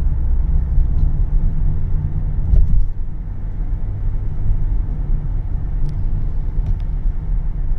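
Steady low road rumble of a car driving in the rain, heard from inside, with a few faint ticks of raindrops hitting the car and a low thump about two and a half seconds in.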